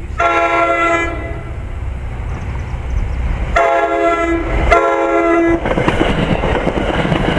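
An approaching NJ Transit commuter train sounds its cab-car horn: one blast of about a second, then two more blasts close together a couple of seconds later. After the horn stops, the coaches pass close by with the clatter of wheels on rail.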